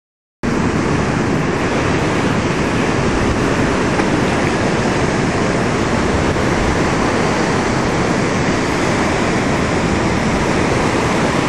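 A loud, steady rushing noise with no pitch or rhythm. It starts abruptly just after the beginning and cuts off at the end.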